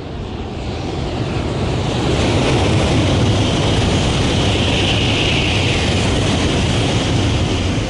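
Sanyo Shinkansen high-speed train passing at speed: a loud, steady rumble with a hiss on top that builds over the first two seconds, holds, and starts to fade near the end.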